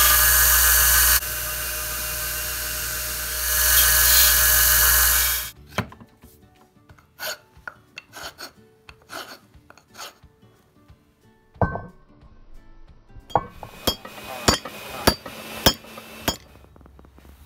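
Belt sander running against a wooden hammer handle, stopping abruptly about five and a half seconds in. Then a hand rasp scraping across the wood in separate strokes, followed by a run of sharp knocks with a brief metallic ring near the end.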